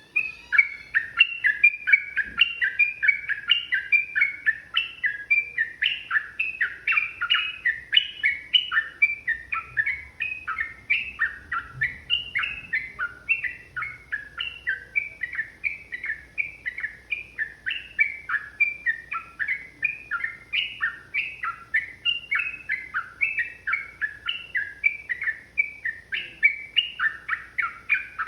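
Sooty-headed bulbul (trucukan) singing a long, unbroken run of short, quick notes, about three a second, the fast continuous 'ropel' song.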